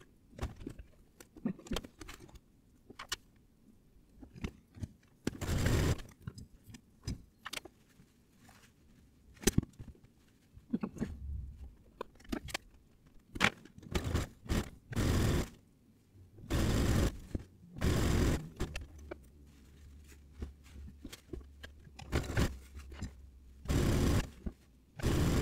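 Coat-making work sounds in a sewing studio, sped up about tenfold: a fast jumble of clicks, scrapes and short rustling bursts from handling and cutting fabric, with a low steady hum through the later part.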